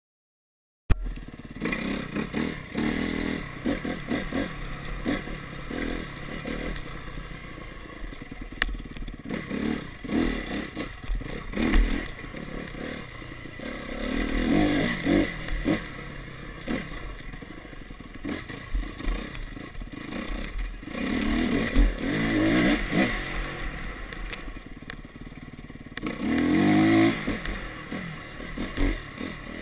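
A Honda CRF250R enduro dirt bike's single-cylinder four-stroke engine, heard from on the bike as it is ridden along a rough trail. The sound cuts in abruptly about a second in, then revs up and drops back again and again through the gears, with knocks and rattles throughout.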